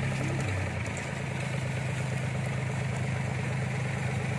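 Engine of a loaded rice-hauling machine idling steadily; its note dips slightly about half a second in, then holds.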